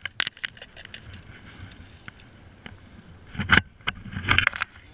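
Clicks and rattles from handling a metal fish lip-grip and a tape measure, with two louder clusters of knocks and rustling about three and a half and four and a half seconds in.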